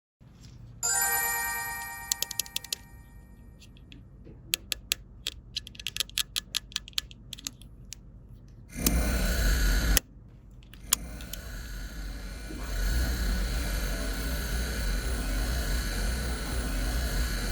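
A toy's electronic chime rings and fades, followed by a run of light clicks. Later comes a stretch of loud hissing noise that settles into a steady hiss.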